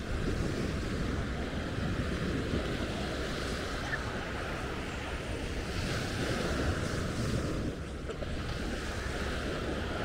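Sea surf washing onto a sandy beach, with wind buffeting the microphone as a steady low rumble.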